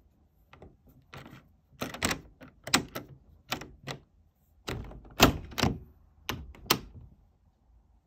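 About a dozen sharp taps at irregular intervals, several in quick pairs, the loudest a little past the middle.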